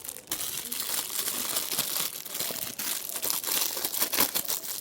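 Plastic packaging crinkling in irregular crackles as it is handled and unwrapped.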